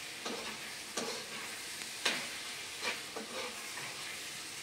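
Soft rustles and light taps of hands laying apple filling along a sheet of thin stretched pastry dough, over a steady hiss; the strongest rustle comes about two seconds in.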